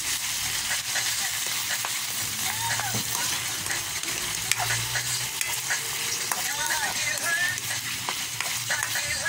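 Potato, mushroom, onion and chili pieces sizzling steadily in hot oil in a wok while a spatula stirs them, scraping and knocking against the pan.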